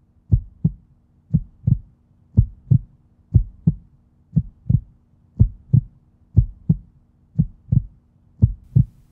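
Heartbeat sound effect: paired low thuds, lub-dub, repeating steadily about once a second, over a faint low steady hum.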